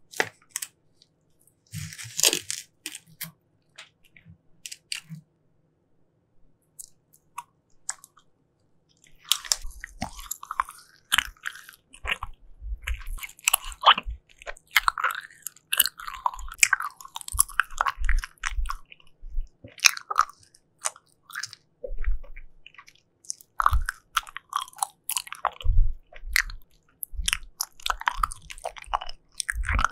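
Close-miked mouth sounds of someone biting and chewing jelly. There are a few scattered clicks and one short burst in the first seconds, then continuous chewing from about a third of the way in.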